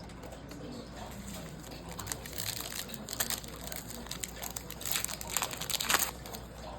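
Crinkling and rustling of a foil trading-card pack wrapper being handled and torn open, in irregular bursts that are busiest about two and five seconds in.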